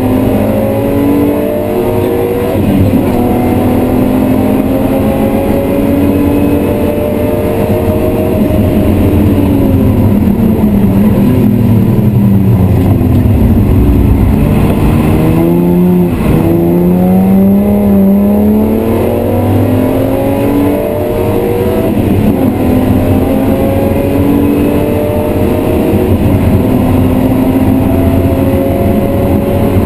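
BMW E36 M3's 3.0-litre straight-six, heard from inside the cabin while being driven hard on track. It revs up through the gears, its pitch falls in steps through a string of downshifts under braking around the middle, then it climbs again through several upshifts as the car accelerates away.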